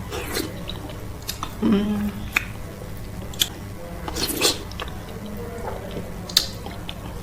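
Close-miked chewing and wet mouth smacks of someone eating okra soup with fufu and cow foot: slimy, squishy bites with sharp clicks at irregular intervals and a brief hum of the mouth now and then.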